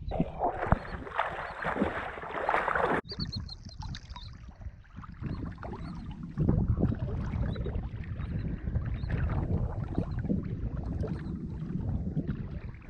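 Sea water splashing and sloshing against a waterproof camera held at the surface while swimming. A brighter hissing splash stops abruptly about three seconds in, and low, uneven sloshing carries on after it.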